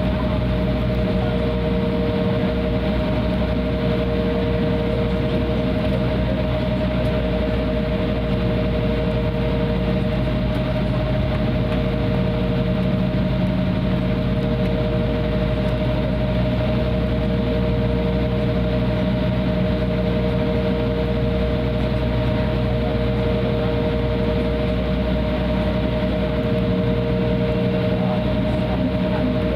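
Embraer 175's twin GE CF34-8E turbofan engines running at taxi power, heard inside the cabin: a steady engine drone with two held tones over a low rumble.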